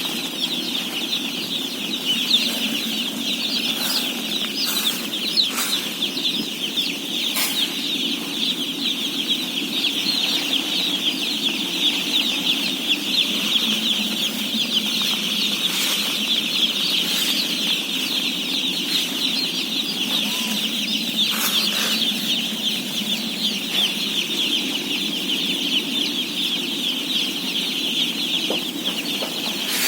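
A large flock of day-old chicks peeping continuously, thousands of overlapping high chirps, over a steady low hum, with a few brief knocks.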